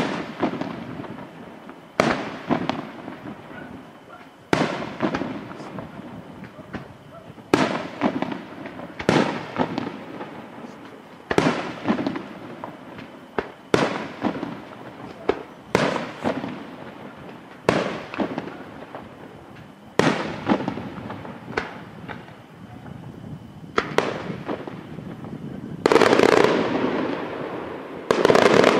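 Aerial firework shells bursting in a steady series, a sharp bang every one to two seconds, each followed by a fading echo. About 26 seconds in, a louder, denser stretch of bangs lasts a couple of seconds.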